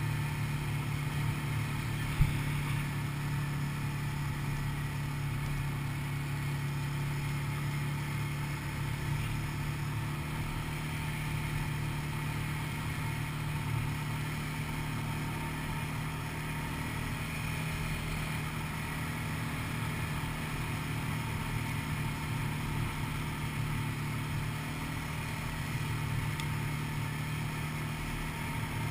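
ATV (quad bike) engine running steadily at a constant pace along a dirt track, heard from a camera mounted on the quad's front. A single sharp knock sounds about two seconds in.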